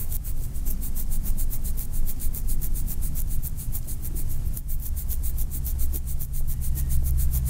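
Ominous horror sound design: a low rumbling drone with a fast, even pulsing hiss above it, about six pulses a second. A steady low hum note comes in about six seconds in and grows stronger.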